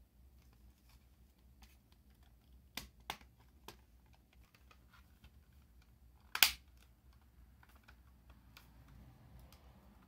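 Plastic housing of a Sony Discman D-E200 portable CD player being handled and pressed together: a few light clicks, then one sharp, loud snap about six seconds in as the shell is pressed into place.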